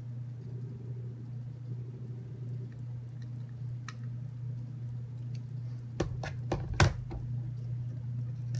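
Small plastic parts and screws clicking and clacking against the plastic waffle plate and the table as they are handled: a few faint clicks, then a quick cluster of about five sharp clicks about two-thirds of the way through. A steady low hum sits under it all.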